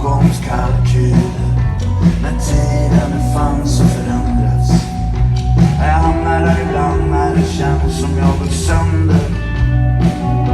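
Rock band playing a blues-rock song with a steady drum beat, bass and guitar, with no vocal line in this stretch.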